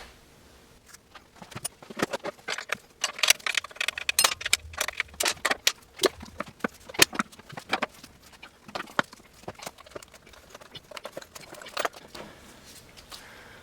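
Irregular clicks, taps and clatter of hand tools and metal parts being handled on an electric dirt bike while a shock mount bolt is removed and the battery connector is unplugged.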